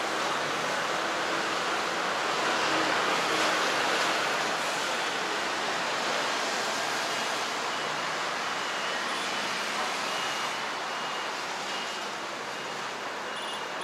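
Steady traffic noise from a busy city road, with cars and scooters passing. It swells to its loudest about three to four seconds in and eases slightly near the end.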